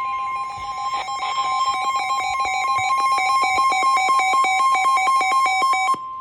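Emergency alert warning tones announcing a severe thunderstorm warning: two steady pitched tones sound together under a rapid even pulsing of about eight beats a second. About six seconds in, the lower tone and the pulsing cut off and the higher tone carries on alone.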